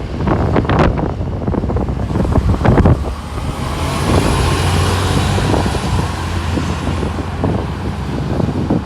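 Orion V diesel transit bus going by, its engine a steady low drone from about three seconds in until near the end, with a faint high whine above it. Gusts of wind buffet the microphone in the first few seconds.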